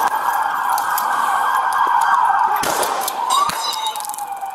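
Police car siren sounding in a fast warbling yelp, changing near the end into a slower wail that glides down in pitch. A couple of short knocks about two and a half and three and a half seconds in.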